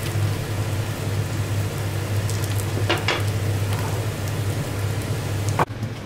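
Sticky-rice pancake sizzling in hot oil in a frying pan, a steady hiss over a constant low hum, with a short clack of a utensil about three seconds in. The sizzle cuts off abruptly near the end.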